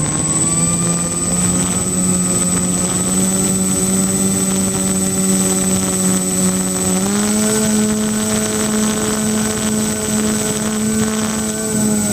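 Twin electric motors and 10x6 propellers of a foam-board RC plane droning steadily, heard from the camera on board with wind rushing past and a thin high whine above. The pitch steps up about seven seconds in as the motors speed up, then dips slightly near the end.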